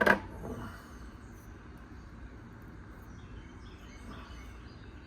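Steady low background noise with faint, scattered bird chirps, after one brief sharp sound right at the start.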